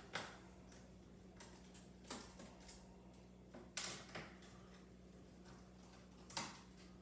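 Faint, scattered sharp clicks and taps of a small Phillips screwdriver and small screws as screws are taken out of a Chromebook's bottom case, about seven clicks in all with a gap late on. A faint steady low hum lies underneath.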